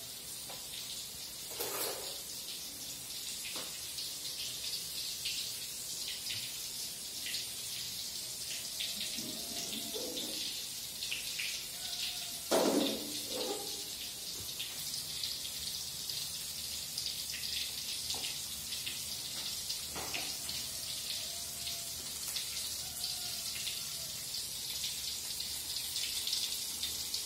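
Cooking oil heating in a steel wok on a gas burner, hissing steadily with faint scattered crackles. A few short clunks of containers being handled are heard, the loudest about halfway through.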